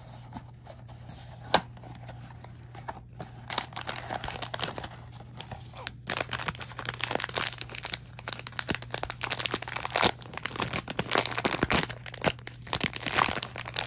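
Blind box packaging being torn open and crinkled by hand: a few scattered clicks at first, then dense, continuous crinkling and tearing from about six seconds in.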